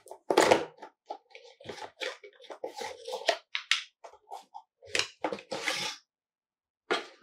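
Handling noises: an irregular run of small knocks, clinks and rustles, with a short pause near the end.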